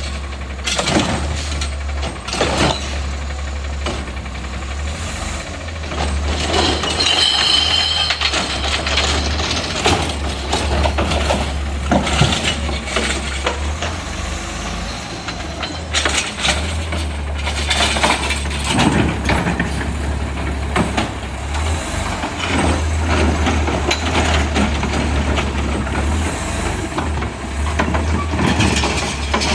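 Heil Rapid Rail automated side-loading garbage truck on a natural-gas Autocar chassis running steadily, with repeated clanks and knocks from the lifting arm and carts. A brief high-pitched whine comes about seven seconds in.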